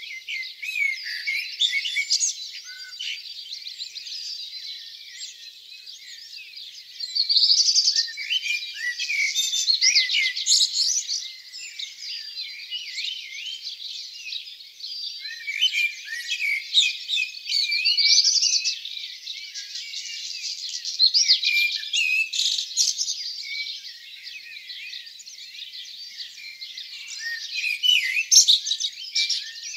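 Dawn chorus of many small songbirds singing at once: a dense weave of high chirps, whistles and trills, with louder song phrases standing out every few seconds.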